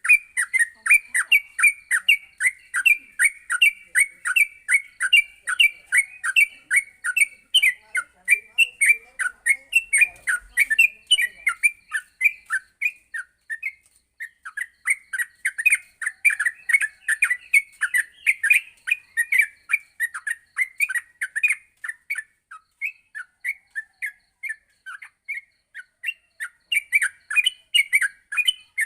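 Yellow-vented bulbul (trucuk) singing a fast, continuous run of short chattering notes, about four a second, with a brief pause about halfway through.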